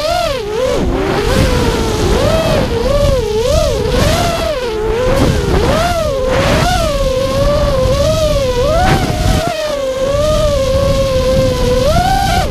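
Black Bolt XBR racing quadcopter's motors and propellers (Cobra 2206 2100kv motors, Gemfan 5045 props) whining loudly, heard from the camera on the quad, the pitch swooping up and down with the pilot's throttle. Wind rush rumbles over the microphone.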